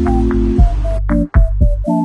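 Electronic background music: deep held bass notes and short synth notes over a regular beat.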